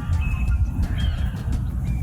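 An animal calling over background music and a loud low rumble.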